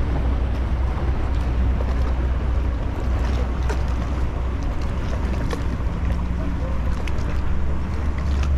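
Steady low rumble of wind on the microphone, with water lapping around a sit-on-top fishing kayak and a few faint ticks.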